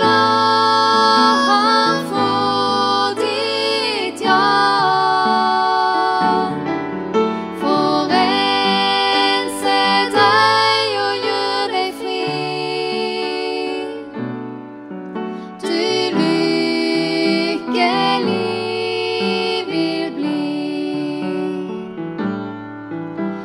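Two women singing a slow song together with upright piano accompaniment. The sung phrases break off briefly twice while the piano carries on.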